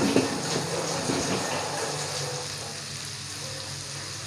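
Chopped chillies, shallots, garlic and tomato sizzling in hot oil in a wok, with a few sharp crackles in the first second or so, then easing to a quieter steady sizzle after about two seconds.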